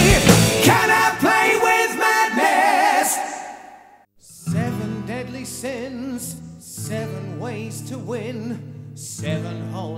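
Background music: a heavy metal song with singing fades out over the first four seconds, then a quieter track begins with sustained low notes under a singing voice.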